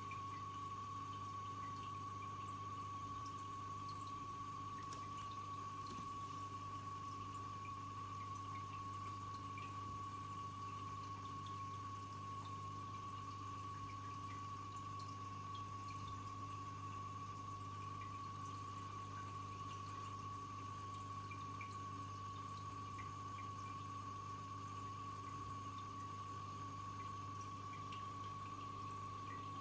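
Aquarium pump running: a steady low hum with a constant high whine over it, and faint trickling, dripping water.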